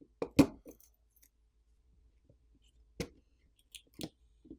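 Scattered sharp clicks and taps of small metal repair tools on a smartphone's internal parts. There is a quick cluster near the start and a few single clicks in the last couple of seconds.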